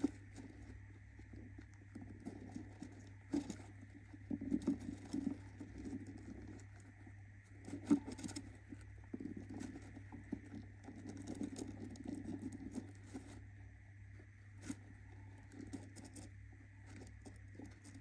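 Budgie hen moving about in a wooden nest box lined with shredded paper: irregular rustling and scratching of the nesting material, with scattered small clicks from claws or beak on the wood.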